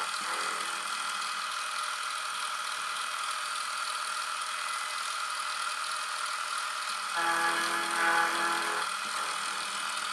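Milling machine spindle running with an end mill cutting flats on a drill-rod blank held in a collet block. A louder pitched ringing from the cut comes in for about two seconds, starting about seven seconds in.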